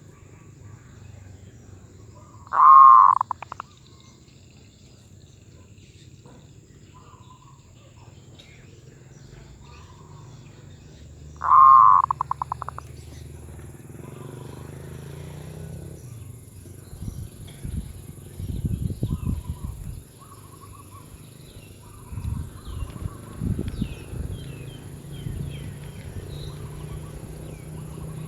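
Zebra dove cooing twice, about nine seconds apart: each call is a loud rolling coo that breaks into a quick run of short staccato notes. Low, irregular rustling sounds come in the second half.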